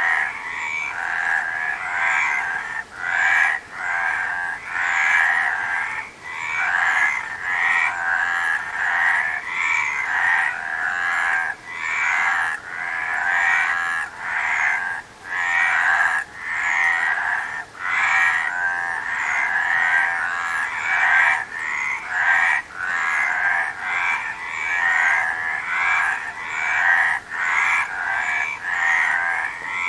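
A chorus of many frogs croaking at once, their calls overlapping into a dense, pulsing din with brief dips about every second.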